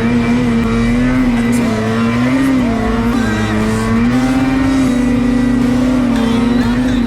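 Ski-Doo Renegade XRS 850 two-stroke twin engine running at high revs, its pitch wavering slightly up and down as the throttle varies.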